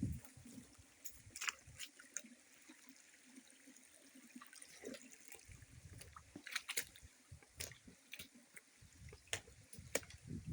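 Water trickling and dripping in a small spring-fed stream and pool, with scattered small clicks and a few low knocks throughout.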